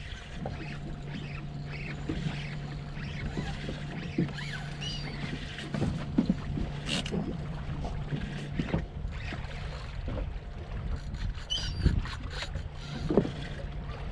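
Ambience aboard a small fishing boat: a steady low hum that breaks off about nine seconds in and returns more faintly near the end, over a constant wash of water and wind, with scattered small knocks and faint chirps.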